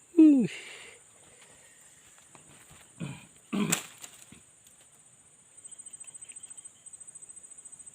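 Insects shrilling steadily in a high, even drone. Just after the start comes a short, loud vocal sound falling in pitch, with two brief calls and a sharp click around three to four seconds in, and a fast, even pulsing chirp in the last couple of seconds.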